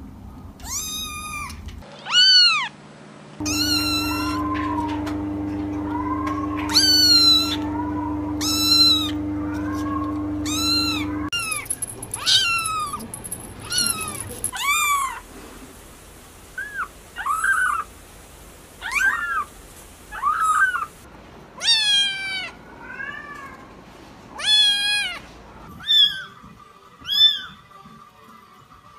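Kittens mewing over and over: many short, high-pitched calls that rise and fall, from several kittens in turn. A steady hum runs under the calls for several seconds early on.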